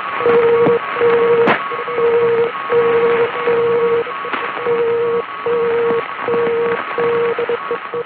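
Off-air shortwave recording of Genoa Radio (ICB) sending the Morse safety signal TTT TTT TTT: a steady mid-pitched tone keyed in a string of evenly spaced dashes over radio hiss, with a fainter, higher-pitched Morse signal underneath. TTT is the safety signal, sent before a gale warning or other navigational warning.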